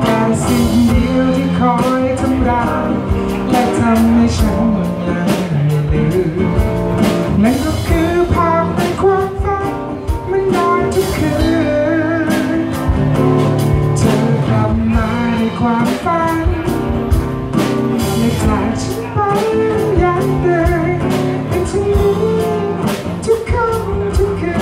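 Live band playing a song: a woman sings lead over strummed acoustic guitar, with a drum kit keeping a steady beat.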